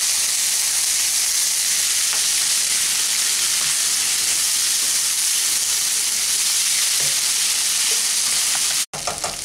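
Rice and red lentils sizzling in a nonstick pan while being stirred with a spatula: a steady frying hiss with faint scrapes. The sound drops out abruptly for an instant near the end, then carries on quieter.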